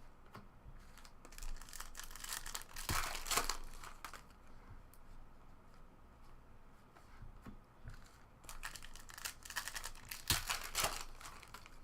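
Foil trading-card pack wrappers being torn and crinkled, in two bouts of crackling, one about a second in and another near the end.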